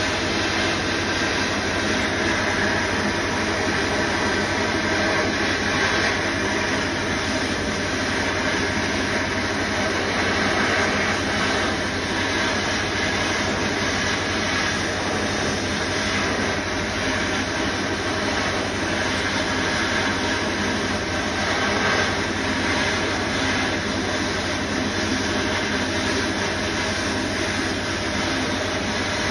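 Sandblast cabinet gun blasting abrasive with compressed air onto a steel C-clamp: a steady, unbroken hiss.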